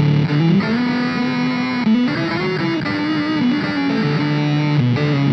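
Electric guitar (Rivolta Mondata VIII) played through an RPS Effects Bit Reactor bit-crusher pedal, giving a gritty, lo-fi crushed tone. Held notes slide up and down in pitch.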